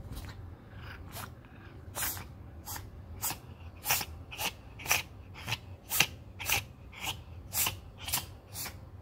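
Cat sneezing in a rapid fit: a run of about fifteen short, sharp sneezes, roughly two a second, loudest around the middle.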